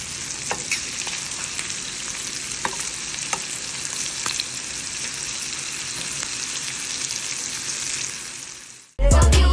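Shrimp sautéing in hot oil in a pan on the stove: a steady sizzle with scattered sharp pops. It fades out near the end and loud music cuts in.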